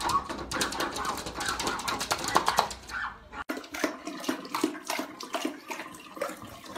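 A dog's paws scratching and bumping against a glass door. About three and a half seconds in it gives way to water running from a bathroom sink tap while dogs drink at it.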